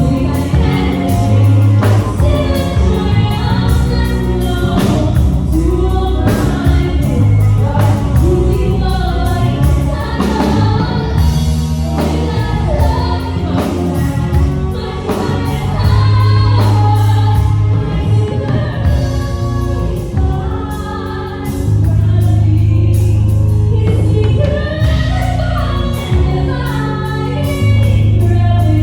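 A singer belting a musical-theatre ballad over a live band: keys, bass and drums. The voice holds long bending notes throughout.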